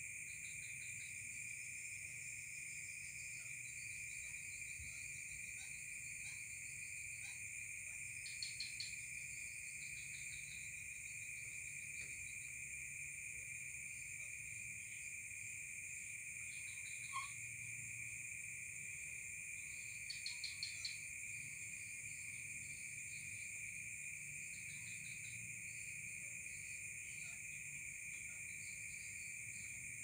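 Insect chorus of crickets: a steady high-pitched trilling at two pitches, with short bursts of rapid chirping about a quarter of the way in and again about two-thirds through.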